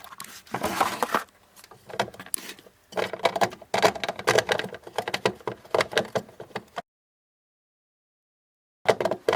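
Plastic knocks, clicks and rattles of a front-loading washing machine's detergent dispenser drawer being handled and pushed back into its slot. The sound cuts off abruptly into about two seconds of dead silence near the end.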